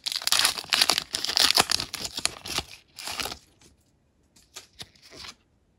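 Pokémon booster pack's foil wrapper being torn open and crinkled: dense crackling for about three seconds, then a few short, softer rustles.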